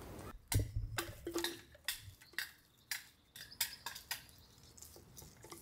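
Light, irregular clinks and knocks of hard objects, about a dozen short strikes spread over a few seconds.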